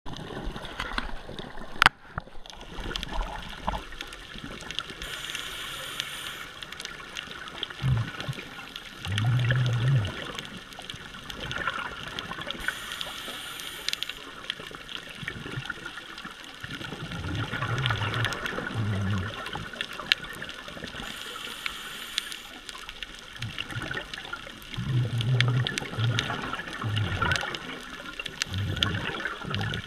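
Scuba breathing through a regulator, heard underwater: a hiss on each inhale, then a low bubbling rumble of exhaled bubbles a few seconds later, about one breath every eight seconds. A single sharp click sounds near two seconds in.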